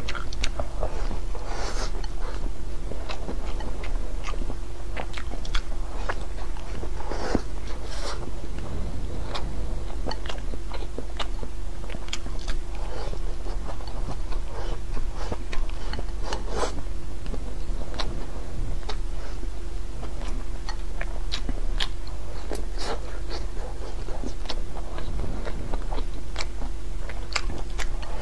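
A person chewing and biting mouthfuls of rice and braised food, with many irregular short clicks from the mouth. A steady hum runs underneath.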